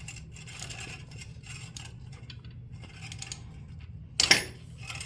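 Ratchet with a 17 mm socket tightening the go-kart engine's oil drain plug: light metallic clicking and scraping, then a loud short clatter about four seconds in.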